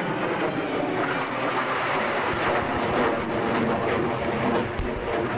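Jet noise from F/A-18 Hornets flying over in the dark: a loud, steady rushing roar, with a few sharp crackles in the second half and a low thump near the end.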